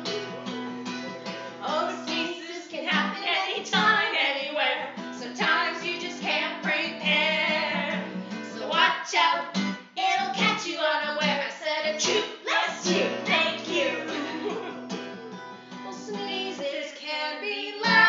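Acoustic guitar strummed while a woman sings along.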